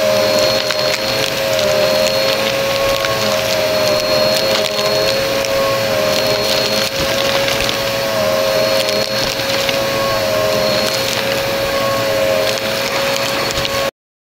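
Upright vacuum cleaner running on carpet and crunching up debris: a steady motor whine with a second tone that dips and rises as it is pushed back and forth, over a constant crackle of grit rattling up the nozzle. The sound cuts off abruptly near the end.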